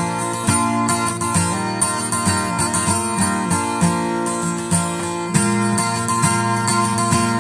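A guitar being played, plucked notes and chords struck one after another at an even pace.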